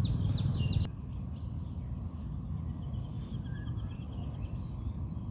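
Outdoor ambience: a low rumble of wind on the microphone under a steady high insect whine, with faint short bird chirps in the middle. The overall level drops a little about a second in.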